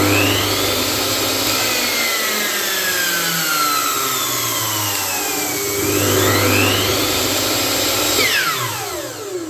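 Electric power tool motor running with a high whine. The pitch sinks slowly over several seconds, climbs again about six seconds in, then falls steeply as the motor winds down after about eight seconds.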